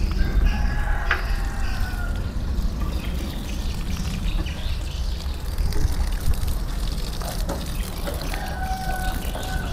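Water being poured out and trickling onto the ground: a root-stimulant fertilizer solution being watered onto plants.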